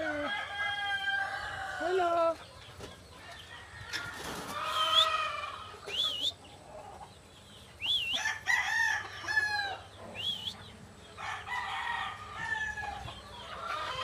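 Sulphur-crested cockatoo vocalising: a run of chattering, voice-like calls broken by short high chirps that rise and drop, several times over, with brief pauses between phrases.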